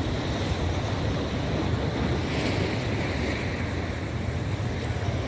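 Steady wind buffeting the microphone, a low rumble over the wash of sea water in a harbour.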